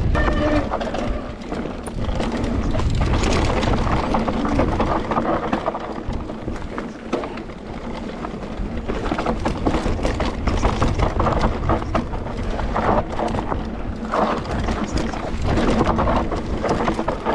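Mountain bike riding fast down a dirt trail: tyres running over dirt and stones, with the bike clattering and knocking over bumps. A steady low rumble of wind on the microphone runs underneath.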